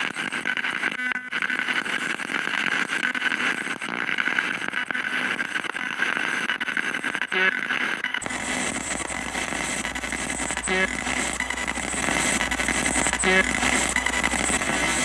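Spirit box sweeping the FM radio band: a steady rush of static hiss, chopped into rapid fragments as it skips from station to station. About eight seconds in, a low hum comes in and the static grows brighter.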